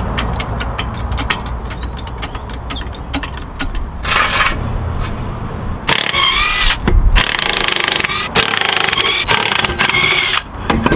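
Cordless impact wrench hammering a socket on a car wheel, in a short burst about four seconds in and then in longer runs from about six seconds, with a wavering motor whine over the rapid strikes.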